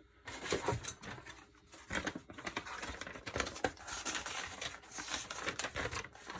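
Small metal gun parts clicking and scraping in quick, irregular taps as a new extractor is worked into an Uzi bolt by hand.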